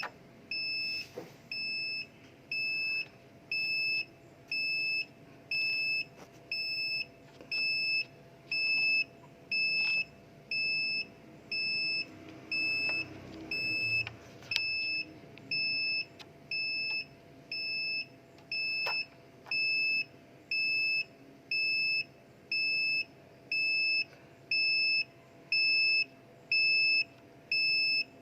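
Vehicle reversing alarm beeping steadily, about one high-pitched beep a second, each beep a little over half a second long with short gaps between.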